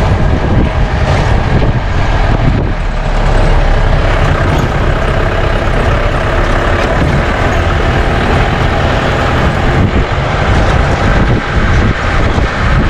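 Safari jeep engine running with a loud, steady rumble of the ride over the track.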